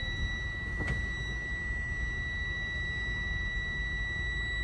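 Steady high-pitched electronic buzzer holding one unbroken tone, over a low rumble, with a single click about a second in.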